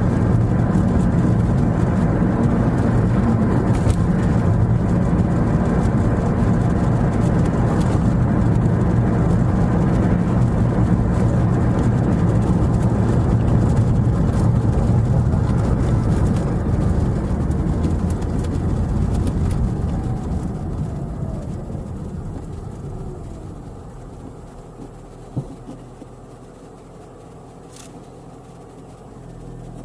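Car cabin road and engine noise while driving, a steady low rumble that dies away over several seconds about two-thirds through as the car slows, leaving a quiet low hum. A couple of light clicks near the end.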